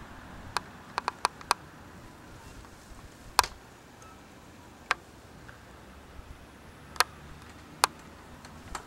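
Scattered sharp crackles and clicks, about ten at irregular intervals, from a dry juniper bark tinder nest holding a smouldering friction coal.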